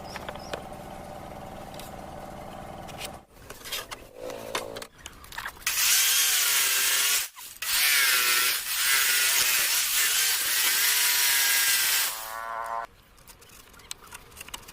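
Power tool working wood: its motor runs steadily at first, then about six seconds in it cuts loudly into the wood for about six seconds, its pitch dipping and recovering under load before it stops.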